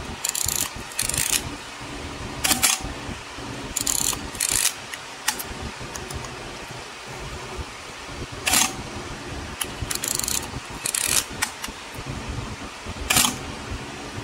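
Pentax P30t 35 mm SLR dry-fired with the back open: the film advance lever is wound with short ratcheting strokes, then the shutter and mirror clack, three times over.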